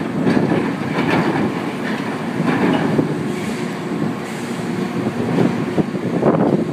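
Heavy diesel machinery running steadily during log loading in a ship's hold, with scattered knocks and clanks.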